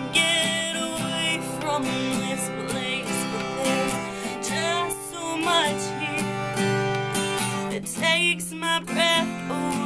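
Acoustic guitar strummed while a woman sings, her voice wavering with vibrato on held notes.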